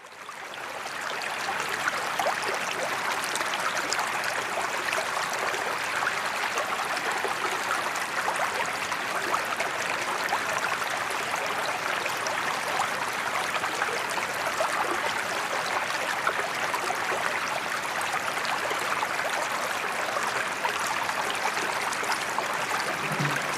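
Running water of a stream, a steady even rush that fades in over the first two seconds.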